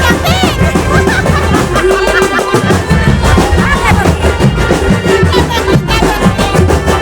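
Loud, continuous music with percussion and a wavering, reedy melody.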